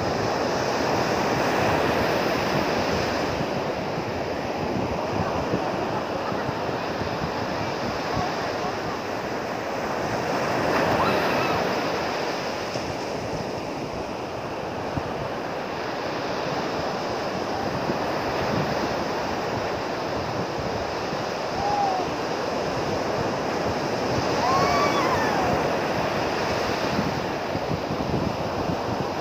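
Ocean surf breaking and washing up the beach, a steady rush of water that swells and eases every few seconds.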